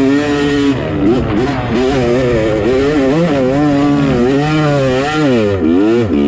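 Two-stroke Yamaha dirt bike engine revving hard under load up a sand hill, its pitch rising and falling with the throttle and dropping sharply shortly before the end.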